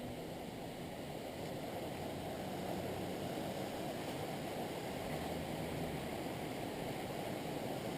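Steady rushing noise with no music, even throughout, without clicks or distinct events.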